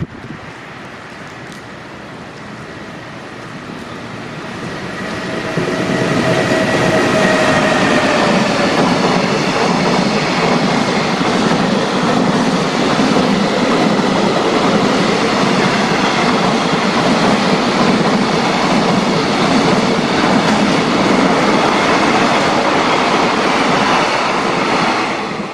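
Container freight train passing close by: the sound swells as it approaches, with a brief falling whine about six seconds in, then holds as a steady rhythmic clatter of wagon wheels on the rails for about twenty seconds before cutting off suddenly at the end.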